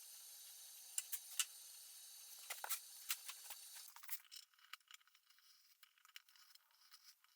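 Faint, scattered light clicks and rattles, a few at a time in the first four seconds, then near silence.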